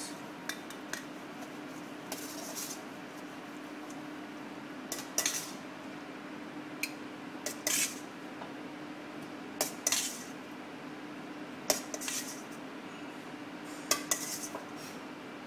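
Utensils clinking and scraping against a mixing bowl as a pea salad is tossed in its dressing, in separate short strokes every second or two, over a steady low hum.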